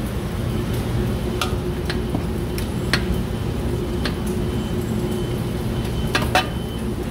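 A few light clinks of a ladle and utensils against stainless steel pots as food is ladled into a paper bowl, two close together near the end being the loudest, over a steady low background rumble.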